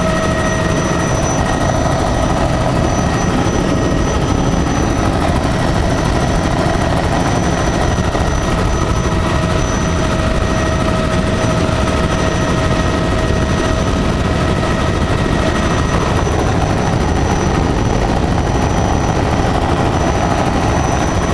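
Helicopter in flight heard from inside the cabin: a loud, steady rotor and engine drone with a constant whine above it.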